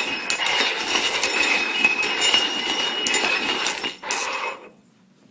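Continuous clinking and scraping of hard objects being slid and shuffled across a hard surface, with small clicks throughout. It stops suddenly near the end.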